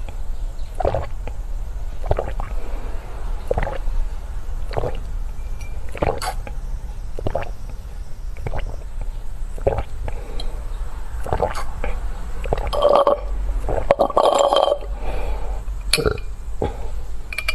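Close-miked eating and mouth sounds: chewing noises coming about once a second, with a louder, longer stretch of mouth and throat sound about two-thirds of the way through.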